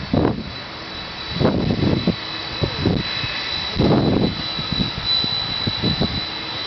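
Boeing 767 freighter's jet engines running at taxi power, a steady high whine, while the aircraft turns on the ground. Irregular low gusts of wind buffet the microphone and are the loudest sound.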